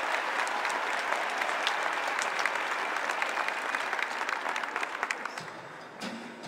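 Audience applauding in an arena, the clapping thinning out and dying away near the end as the first notes of music come in.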